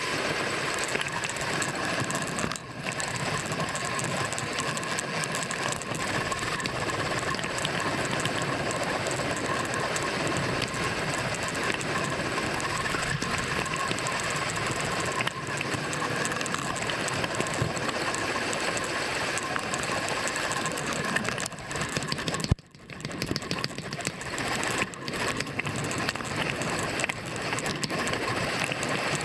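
Bicycle freewheel hub ticking rapidly and continuously as the bike coasts, over road and wind rush. There is a brief break about three-quarters of the way through.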